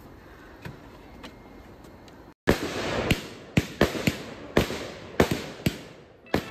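Fireworks going off: a quick run of about ten sharp bangs over roughly four seconds, each dying away briefly, beginning suddenly about two and a half seconds in after a quiet start.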